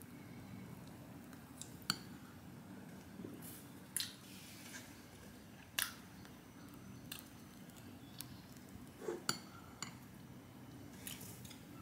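Metal teaspoon clinking against a small glass cup while scooping chocolate ganache, about six short sharp clinks spread through the stretch, a pair close together about nine seconds in. A faint steady low hum runs underneath.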